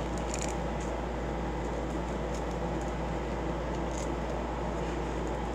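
Steady low hum and hiss of room noise, with a few faint, brief rustles and clicks as fabric hand straps are handled.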